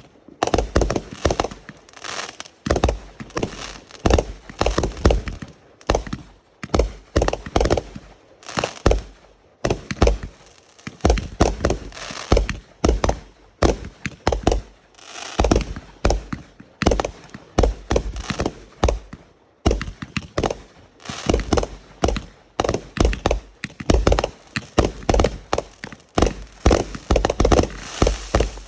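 Fireworks going off in rapid succession: a dense series of sharp bangs, several a second, with crackling between them.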